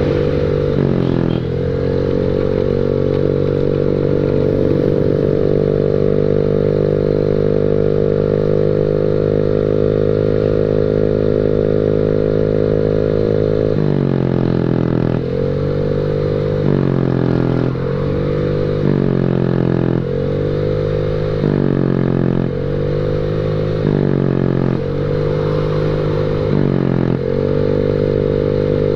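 Honda Beat scooter's single-cylinder engine heard through a loud aftermarket WRC racing exhaust while riding. The note holds a steady drone for about the first half, then repeatedly drops and climbs back about every second and a half as the throttle is closed and reopened.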